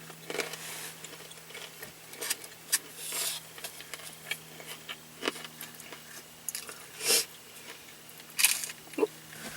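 Close-up eating sounds: bites and chewing with a few louder crunches, scattered irregularly.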